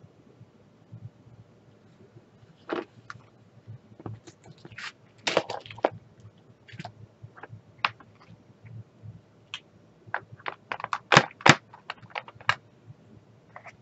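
Small plastic drill containers and an orange plastic funnel tray being handled, with short rattles of resin diamond-painting drills and scattered sharp plastic clicks. A cluster of rattles comes about five seconds in, and the two loudest clicks come near the end.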